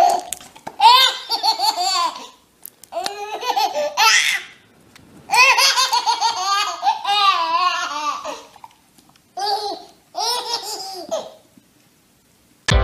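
A baby laughing hard, high-pitched belly laughs in about five long bursts with short breaths between, dying away near the end.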